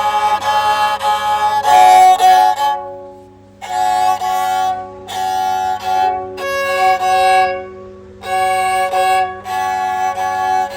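Serja, the Bodo bowed string instrument, played with the bow: a series of held notes at a few different pitches, separated by short breaks.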